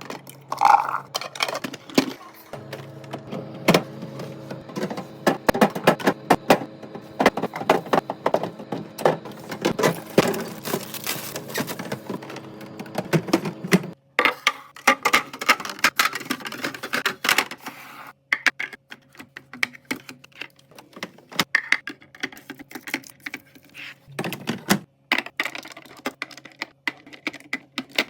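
Kitchen restocking: groceries and storage containers being handled, opened and set down, a dense run of clicks, taps and light knocks that breaks off briefly a few times, over a faint steady hum.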